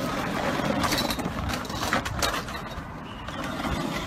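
Knocks and crunches of a motor scooter's plastic body being struck and dragged on the road, with a few sharp hits standing out over a dense, noisy background.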